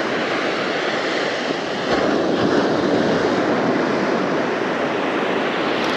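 Ocean surf washing onto a beach: a steady rush of breaking waves that swells slightly about two seconds in.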